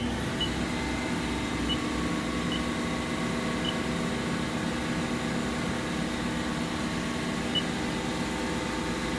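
Haas VF-2B vertical CNC machining center running with a steady mechanical hum of several held tones, with faint ticks now and then.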